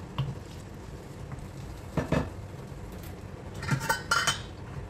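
Wooden spoon stirring pork in sauce in a non-stick frying pan, knocking and scraping against the pan: a knock just after the start, a couple more around two seconds in, and a cluster of louder clinks near the end.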